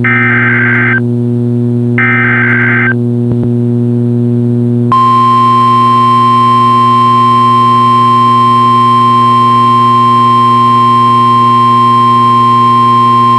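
Emergency Alert System broadcast over NOAA Weather Radio: two short bursts of warbling SAME data tones, the coded header of the alert, then, about five seconds in, the steady 1050 Hz warning alarm tone, which marks a warning such as this severe thunderstorm warning. A steady hum runs underneath.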